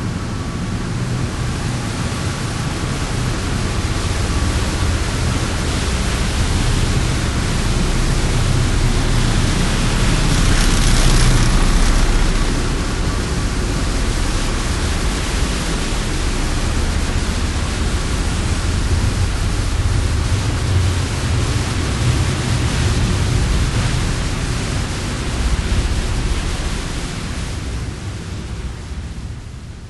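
Motor ferry Prins Johan Friso under way: a steady low rumble of its engines under an even rushing hiss, fading out near the end.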